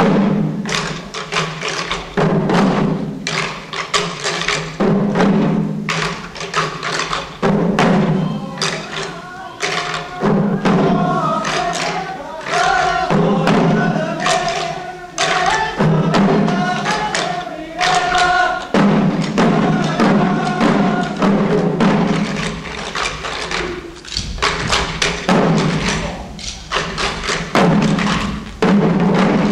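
Shishi-odori deer dancers beating the drums slung at their chests in a steady pounding rhythm. Their chanted singing joins in for about ten seconds in the middle.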